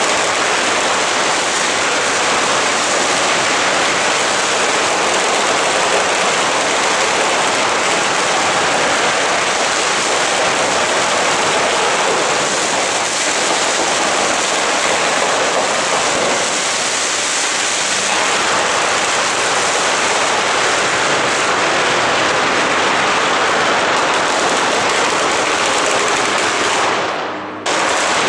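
Fireworks rigged on a wooden cart going off in a dense, unbroken crackle of rapid bangs, briefly dropping away just before the end.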